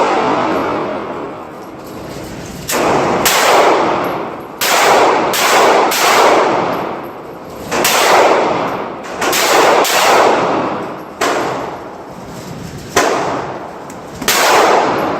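Gunshots echoing in an indoor shooting range: about a dozen sharp reports at irregular spacing, some in quick pairs, each trailing off in a long reverberant ring.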